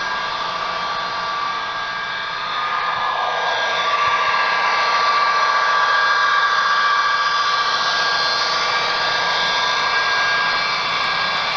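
HO scale model train running along the track: a steady whirring of its motor and wheels with a faint high whine, getting louder about three seconds in as the cars roll past close by.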